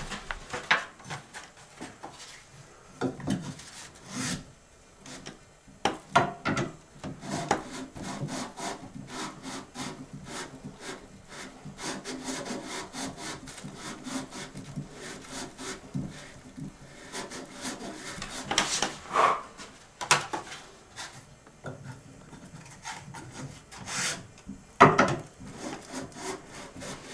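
Sandpaper rasping against the bore of a rough-cast recording cylinder as it is worked back and forth on a sandpaper-wrapped Edison mandrel, in repeated uneven strokes with a few sharper knocks. This is the reaming that cuts the inside to the taper that fits the Edison mandrel.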